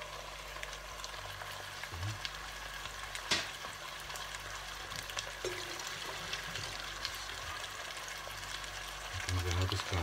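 Turkey strips frying in hot fat in a pot, with a steady sizzle and a sharp click about three seconds in.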